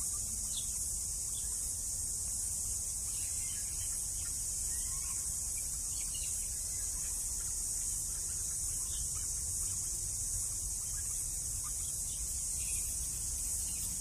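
A steady, high-pitched insect chorus, with a low rumble underneath and a few faint, short bird chirps.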